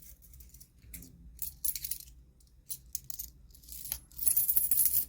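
Metal coins clinking and jingling as they are handled and dropped into a small crochet coin pouch: scattered single clinks, then a denser run of jingling near the end.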